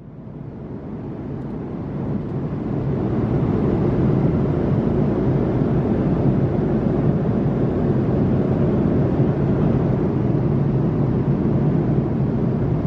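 Steady rumble of engine and airflow noise inside an Airbus A330-200's economy cabin in cruise, fading in over the first few seconds.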